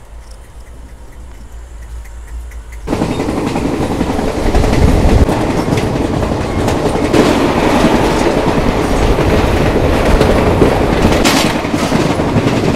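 Indian Railways ICF passenger coach running at speed, heard from its open door: a loud, steady rumble and rattle of the wheels on the rails. About three seconds in it jumps suddenly from the muffled rumble heard inside the coach to the full outside noise.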